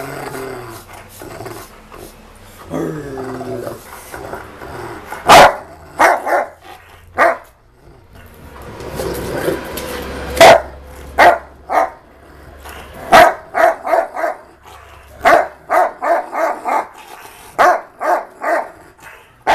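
A Rottweiler growling, then barking in short, sharp barks, in quick runs through the second half, play-growling and barking while being brushed.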